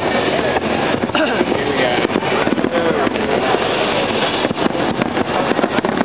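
Fireworks going off in a steady stream of sharp bangs and crackles, over the constant noise of a large crowd with voices calling out.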